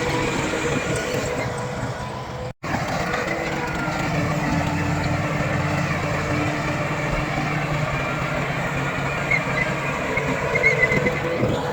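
Heavy diesel earthmoving machinery running steadily, with a sudden brief break in the sound about two and a half seconds in.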